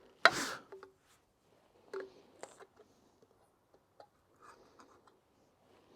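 Plastic polish bottles being handled: a short rustle, then a few light clicks and taps.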